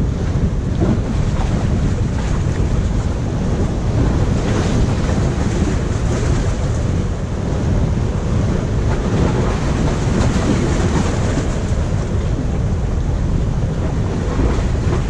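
Waves washing and splashing against the rocks of a jetty, with wind rumbling on the microphone.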